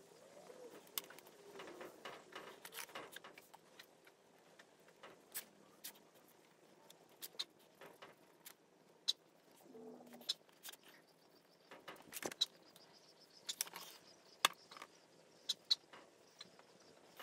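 Whiteboard markers squeaking and tapping faintly as lines and lettering are drawn on a whiteboard, with many scattered sharp clicks.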